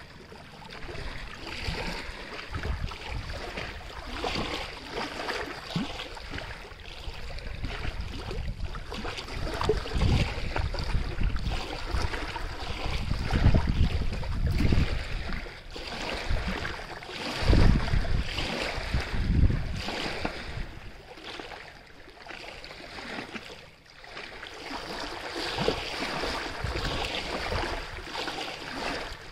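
Running water, a steady rush that swells and fades in loudness, with deep rumbling surges a few times around the middle.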